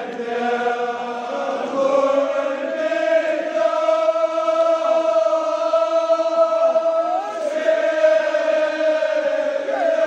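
Kashmiri marsiya in the sareer style, chanted by men's voices in unison. The chant moves in long drawn-out notes that glide slowly between pitches.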